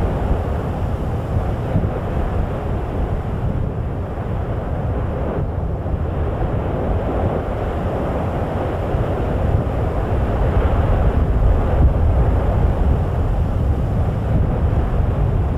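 Wind buffeting the microphone: a steady, loud, low rushing rumble with no distinct events.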